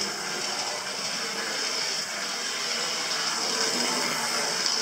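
Hornby R333 GWR 0-4-0T OO-gauge model tank locomotive running along the track at full speed: a steady whirr of its small electric motor and wheels on the rails.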